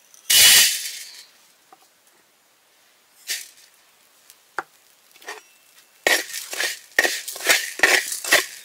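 Salt and black peppercorns poured into a dry metal wok and landing with a loud rattle under a second in, then a second, shorter pour about three seconds in. From about six seconds in a spatula scrapes and stirs them around the pan in quick strokes.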